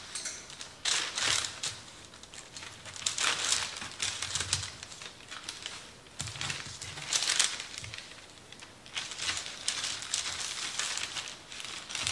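Repeated rustling and crinkling handling noises in a small kitchen, one every second or two.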